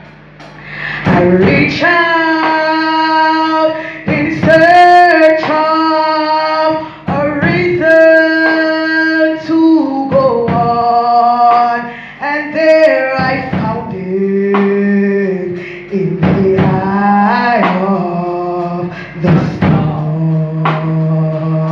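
Slow gospel singing with long held notes in phrases a few seconds apart, led by a woman's voice on a microphone with a man's voice joining in.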